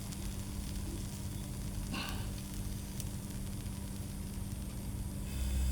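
Curry cooking in the pan with a steady, even hiss, over a low steady hum.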